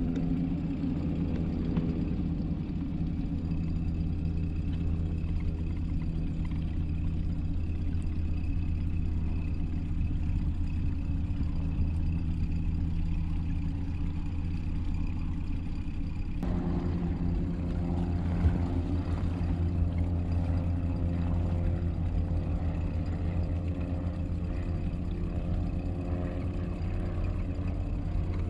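Outboard motor of an inflatable boat running at a steady cruising speed, a constant low drone. About sixteen seconds in the tone changes abruptly, then holds steady again.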